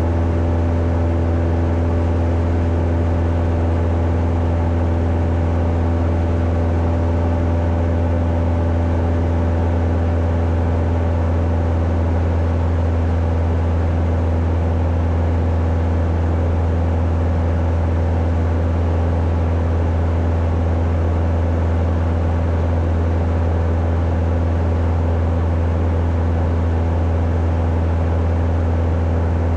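Cessna 172's piston engine and propeller droning steadily at constant power, a deep hum with fixed higher tones above it and no change in pitch.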